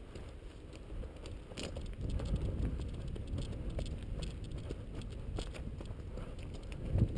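Footsteps crunching on loose gravel, many short crackling clicks, over a low rumble of wind on the microphone that grows louder about two seconds in.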